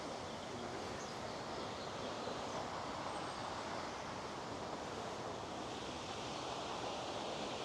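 Steady, even rush of a waterfall and its mountain stream.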